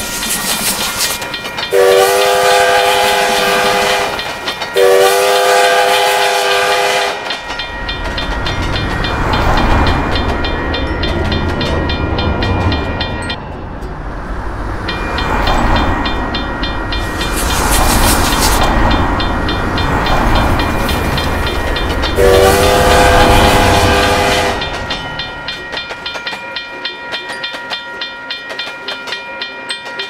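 A train horn sounds two long blasts in quick succession, then a third long blast about twenty-two seconds in, over a railroad crossing bell ringing steadily. From about seven seconds a low rumble of a train running over the rails builds and fades.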